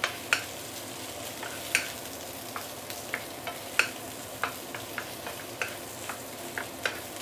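Roast pork and Chinese leeks sizzling steadily as they are stir-fried in a wok. A wooden spatula tosses them, with sharp irregular taps and scrapes against the pan about every half second to second.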